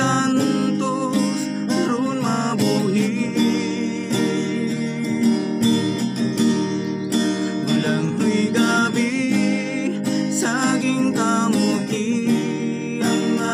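Two acoustic guitars strummed together, with two men singing along in duet over the chords.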